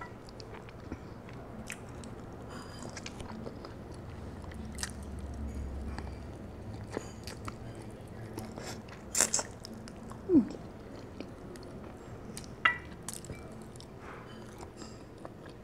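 A person eating roast chicken by hand, close to the microphone: biting and chewing, with many scattered small mouth clicks. A few sharper, louder ones come in the second half.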